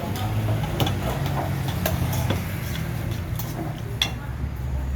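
Several light, irregular clicks and clinks, about five in all, over a steady low hum.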